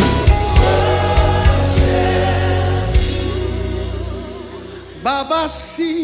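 Live gospel worship music: singing over keyboards with a steady beat, the band fading away about four seconds in, then a single voice singing with vibrato near the end.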